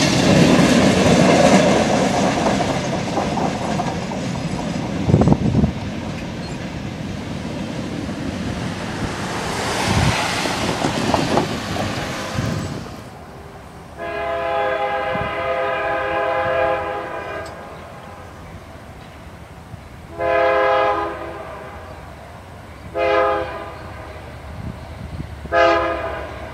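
Freight cars rolling past over the rails with a steady clatter and a few heavy thumps from the wheels. After an abrupt change, an approaching passenger train's horn sounds four blasts: a long one of about three seconds, then three short ones.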